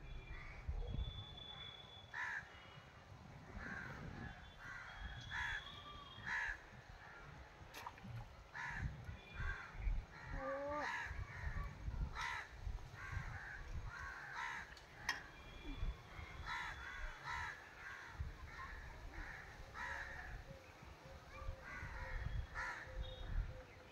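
Crows cawing repeatedly in short calls, with an intermittent low rumble underneath.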